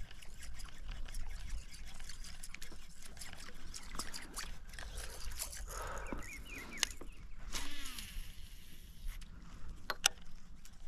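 Water trickling and lapping around a kayak, with scattered small knocks and clicks and a few short chirps near the middle.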